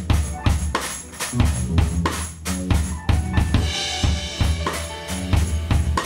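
Live band music driven by a drum kit playing a steady beat with kick and snare, over a deep, sustained bass line.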